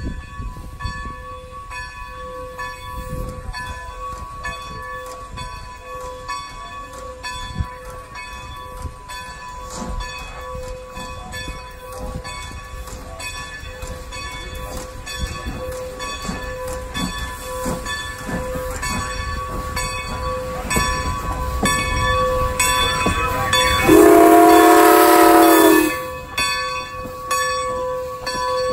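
Steam locomotive, the ex-Great Western 2-10-0 No. 90, working a train: its beats grow louder as it approaches. Near the end there is one loud steam whistle blast of about two seconds.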